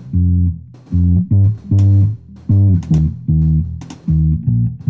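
Finger-style electric bass line playing back as a recorded track on its own: separate low plucked notes, two to three a second, each with a sharp attack. The part is being shaped with a Pultec-style EQ plugin to bring out the string buzz and attack that the boosted low end had buried.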